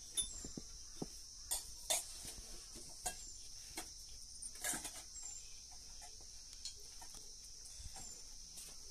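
A steady high insect chorus, with irregular light knocks and clinks of kitchen work scattered over it.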